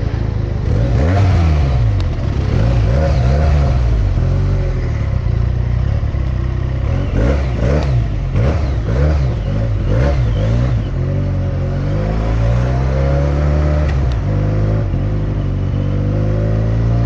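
Benelli motorcycle engine heard through a helmet-mounted microphone while riding in traffic. It revs up and falls back again and again through the gears, then settles into steadier running with a slow rise in pitch.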